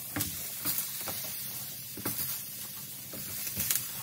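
Eggplant slices frying in a pan sprayed with sunflower oil: a steady sizzle with a few short clicks scattered through it.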